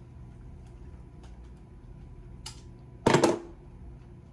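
A wrench and a brass fitting being worked off a plastic water filter cartridge: a few faint metal ticks, then one loud metallic clank with a short ring about three seconds in.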